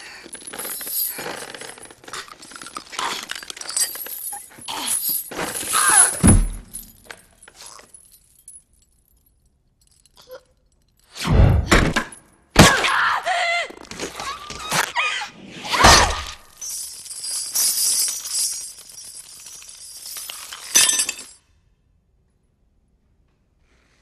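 Movie fight sound effects: a rapid run of crashes, clanks and breaking, a few seconds of silence, then several heavy thudding blows. A long clattering, breaking noise follows and cuts off suddenly, leaving silence near the end.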